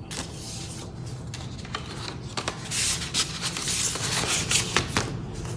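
Packaging being handled: rustling and rubbing of paper or plastic, with small clicks and taps, getting busier about halfway through.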